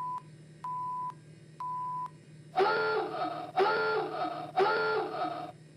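Electronic spaceship-console sound effects: three short beeps at one steady pitch, about one a second, then three louder, longer buzzy tones, each about a second long, like an alarm, as the ship's system powers up.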